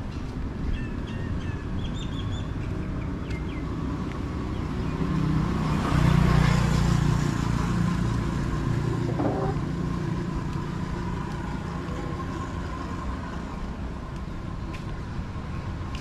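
Street ambience with a steady low rumble of traffic. A road vehicle passes close, swelling to its loudest about six seconds in and then fading. Birds chirp briefly near the start.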